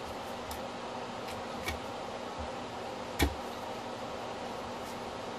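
A few sharp metallic clicks and taps of hand tools and parts against a motorcycle engine crankcase, the loudest about three seconds in, over a steady background hum.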